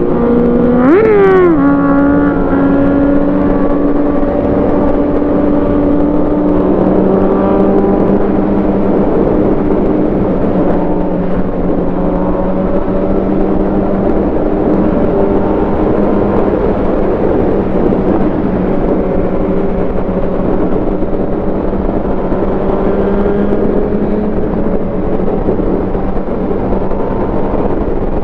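Onboard sound of a Suzuki GSX-R750's inline-four engine cruising at highway speed with steady wind rush, among other sport bikes. About a second in, an engine revs up sharply and drops straight back.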